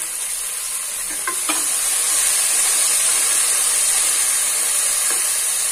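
Chopped onions and split moong dal frying in hot oil, sizzling steadily as a wooden spatula stirs them; the sizzle grows louder about two seconds in.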